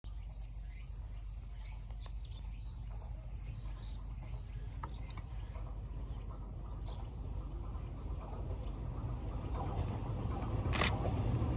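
Steady summer insect chorus with a few faint bird chirps. From about eight seconds in, the rumble of an approaching 485-series electric train grows louder, with the first sharp wheel-on-rail clicks near the end.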